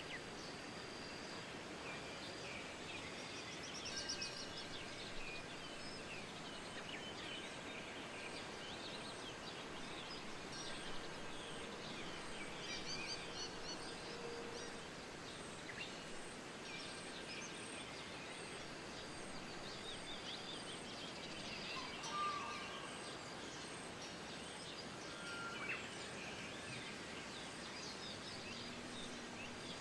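Steady wind with many small birds chirping and twittering throughout, their short high calls overlapping.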